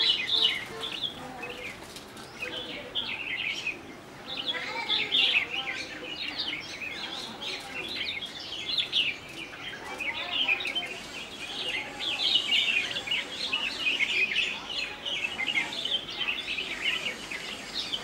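Small songbirds chirping and calling, a dense, overlapping chatter of short high notes that grows busier about four seconds in and again about ten seconds in.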